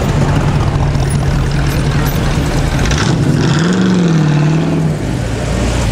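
Classic sports car engine running at a steady idle, with one short blip of revs, rising and falling back, about three and a half seconds in.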